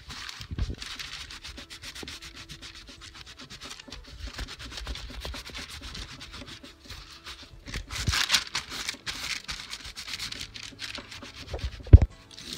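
Cotton cloth dampened with alcohol rubbed briskly back and forth over a leather dog collar: a scratchy hiss in quick strokes, growing louder for a while past the middle. Near the end comes a single sharp thump, the loudest sound.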